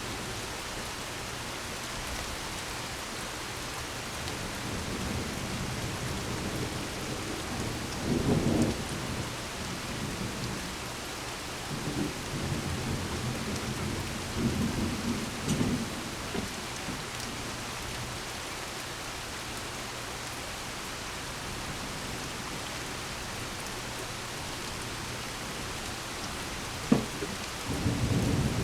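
Thunderstorm: steady rain hiss, with low rolls of thunder rumbling several times, and a sharp crack of thunder near the end followed by a rumble.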